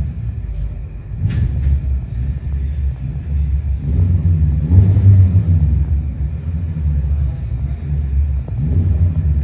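Car engine being revved while parked: the revs rise and fall in swells, about halfway through and again near the end, over a deep steady rumble.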